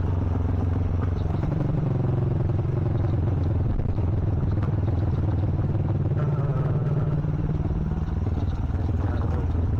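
Yamaha Vixion Advance's single-cylinder four-stroke engine running under way, its note dipping slightly and rising again with the throttle, over steady road and wind noise.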